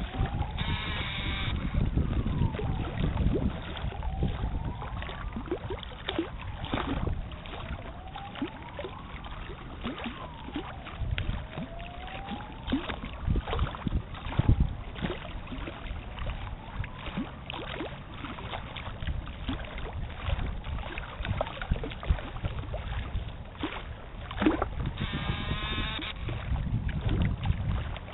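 Wind and small waves lapping and splashing at the water's edge, with many short sharp splashes over a steady low rumble. A faint tone slides down and back up every few seconds.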